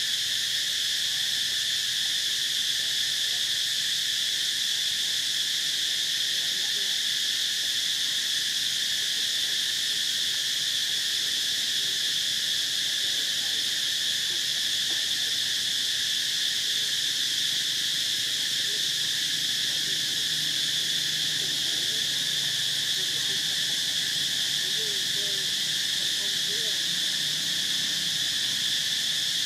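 Insect chorus droning steadily: a high, unbroken buzz with no pauses or changes.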